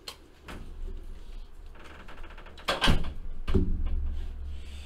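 A few light clicks, a brief fluttering rattle, then a loud knock about three seconds in and a heavier thump just after, trailing off into a low rumble.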